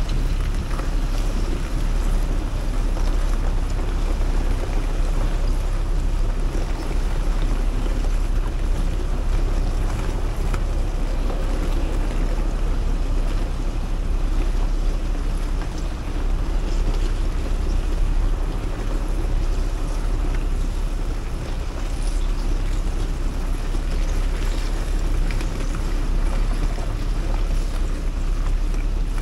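Scania R520 timber truck's V8 diesel running at low revs, a steady low rumble, as the truck reverses slowly with its empty log trailer, with wind noise on the microphone.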